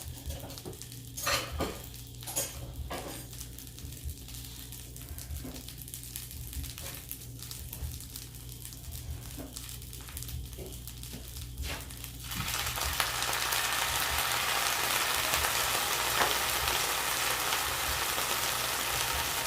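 Pork chops and green beans frying in a skillet, with a few clicks and knocks of utensils against the pan. About two-thirds of the way in, the sizzling suddenly gets much louder and stays loud, as water goes into the hot pan.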